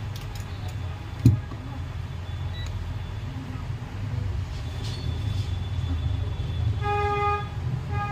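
A single loud thump about a second in, then a vehicle horn sounds for about half a second near the end and once more briefly, over a steady low traffic rumble.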